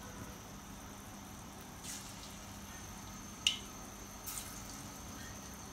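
Besan pakora batter frying in hot oil: a faint steady sizzle with a few short, sharp pops and splats as more batter is dropped in by hand, the loudest about three and a half seconds in.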